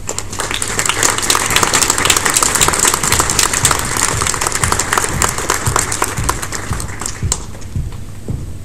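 Audience applauding. The clapping starts just after the beginning, builds, and dies away about seven seconds in.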